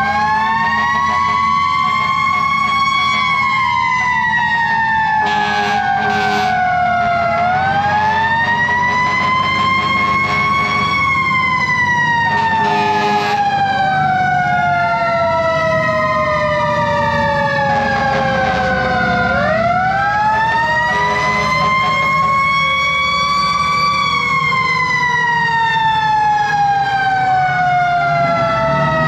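Fire truck sirens wailing, several overlapping cycles that rise quickly and wind down slowly, with short horn blasts about five to six seconds in and again around thirteen seconds. Beneath runs the steady drone of a diesel engine, the fire engine's 8V71 Detroit.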